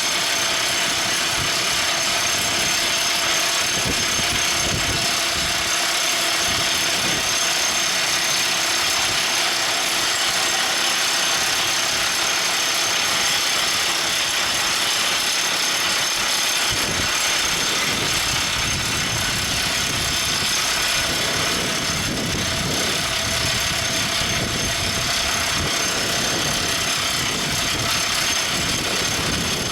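Everdigm ECD45E top hammer drill rig running: steady engine and machinery noise with some rattle, at an even level throughout.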